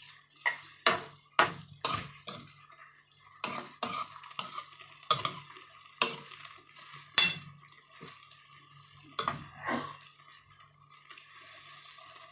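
Metal utensil knocking and scraping against a frying pan while spaghetti is stirred and tossed: about a dozen sharp, irregular clanks, over a steady low hum.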